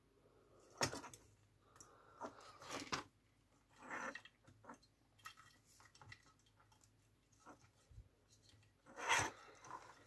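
Plastic parts of a model dozer chassis handled and pushed together by hand: faint scattered clicks, rubs and scrapes, with a sharp click about a second in and a louder clatter near the end.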